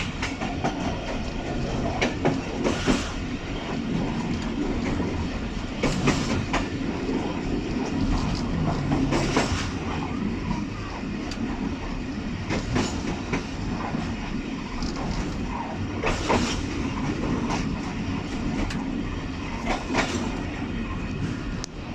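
Passenger train carriage running on the rails: a steady rumble of wheels on track, with sharp clacks every few seconds as the wheels cross rail joints.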